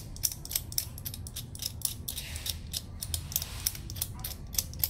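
Screwdriver working a screw in the sheet-metal battery compartment of a 3 kVA UPS, giving a rapid, irregular run of sharp clicks while the battery pack is being freed for removal.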